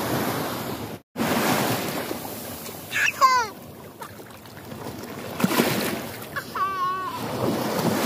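Small sea waves washing up the shore of a sandy beach, a rush of surf that swells and fades. A small child's short high-pitched vocal sounds come twice, about three seconds in and near the end.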